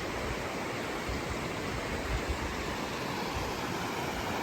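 River water rushing, a steady, even noise without breaks.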